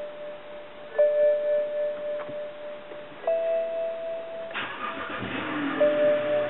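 BMW E90 cold start after sitting for hours: steady chime tones sound for the first few seconds, then about four and a half seconds in the starter cranks briefly and the engine catches and settles into an idle that the owner finds rough.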